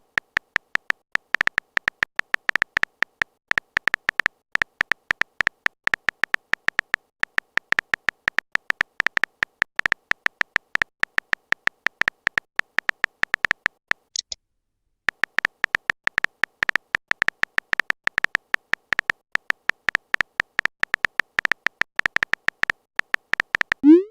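Fast, steady run of short, high electronic beeps, a typing sound effect for chat messages being written out. It pauses for about a second near the middle.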